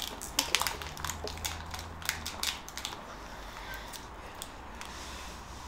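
Irregular crinkling and crackling of a foil Pokémon booster pack and trading cards being handled, busiest in the first three seconds and sparser after.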